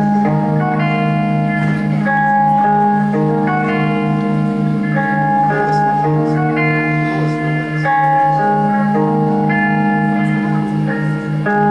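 Instrumental rock music led by guitar: sustained chords that change about every second over a low note pulsing several times a second, with no singing.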